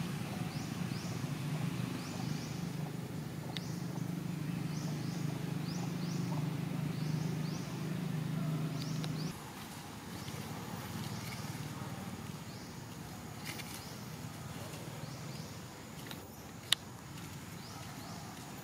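Outdoor ambience: a steady low hum that stops abruptly about nine seconds in, with short high rising chirps repeating throughout and one sharp click near the end.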